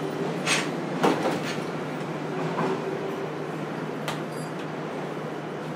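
Inside a JR Kyushu 303 series electric train standing at a station: the car's equipment keeps up a steady low hum. A few sharp knocks and clatters come about half a second in, around one to one and a half seconds in, and again about four seconds in.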